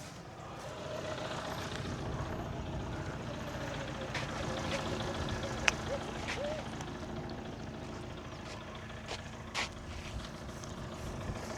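Car engine running steadily while the car is driven, with a few short clicks and one sharp click a little before the middle.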